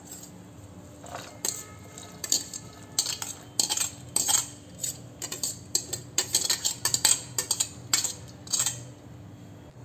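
Metal spoon scraping and clinking against a stainless-steel colander and bowl as boiled sprouts are tipped and spooned out. The clinks and scrapes come irregularly, many in a row, from about a second and a half in until near the end.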